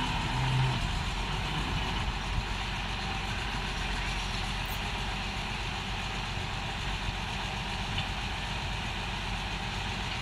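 Old lattice-boom crawler crane's engine running steadily at a low, even idle.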